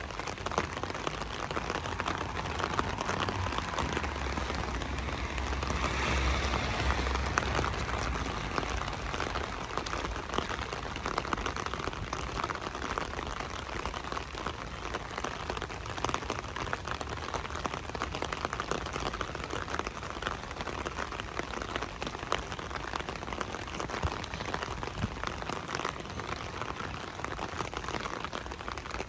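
Light rain falling, a steady patter of many small drops, with a low rumble that swells and fades about four to nine seconds in.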